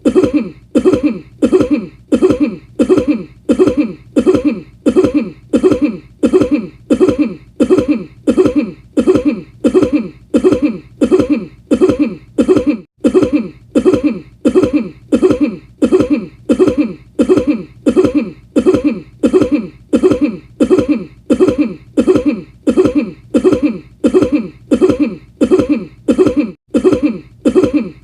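The same short cough repeated over and over at a perfectly even pace, about three coughs every two seconds, each one identical like a looped sample.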